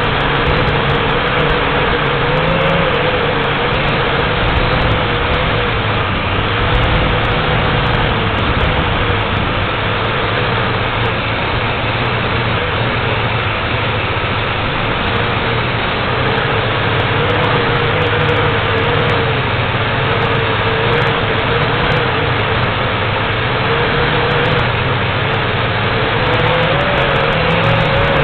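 JXD 509G quadcopter's motors and propellers whirring steadily, picked up by its onboard camera, with a wavering tone that drifts up and down as the throttle shifts. Wind buffets the microphone.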